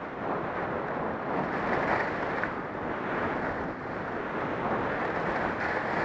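Wind rushing over a helmet-mounted camera's microphone during a fast run down a groomed ski slope, mixed with the steady hiss of edges carving on packed snow.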